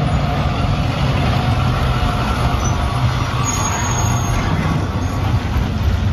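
Full-size school bus driving past with its engine running steadily; the sound cuts off suddenly just after the end.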